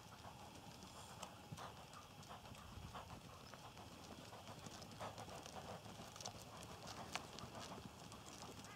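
Faint, uneven hoofbeats of a Connemara pony trotting on a sand arena surface, soft thuds and clicks.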